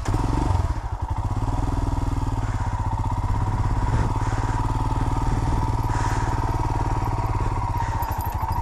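Royal Enfield Himalayan's 411 cc single-cylinder engine running at low revs with a steady, even thumping as the bike is ridden slowly over grass.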